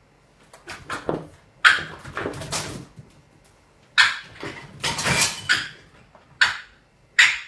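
Fox cub giving a series of harsh, noisy distress cries in repeated bursts, the sound of a frightened, cornered cub.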